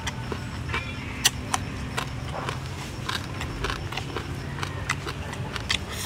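Eating sounds: irregular crisp crackles and crunches as charred grilled balloon frogs are torn apart by hand and chewed, over a steady low hum.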